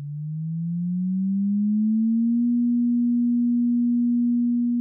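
A single pure electronic tone that glides up in pitch and grows louder over the first two seconds or so, then holds one low steady pitch.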